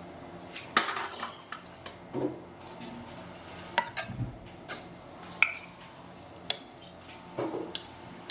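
Kitchen dishes and cutlery clinking and knocking: a dozen or so irregular sharp clinks and short clatters over a low steady hum.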